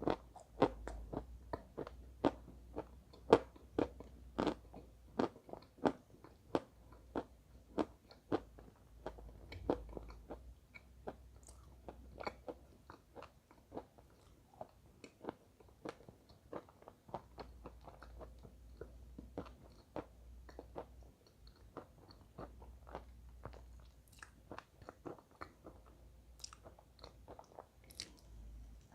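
Chalk being bitten and chewed close to the microphone: a quick run of sharp, dry crunches that is loudest and densest in the first several seconds, then thins to softer, sparser crunches.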